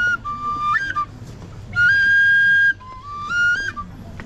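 A high-pitched flute playing a slow tune of held notes that step up and down, in short phrases with brief gaps between them; the longest note, near the middle, is held for about a second.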